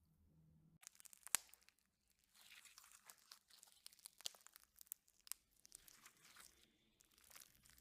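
Slime being squeezed and stretched by hand, giving faint, irregular crackles and clicking pops that start about a second in, the sharpest pop just after.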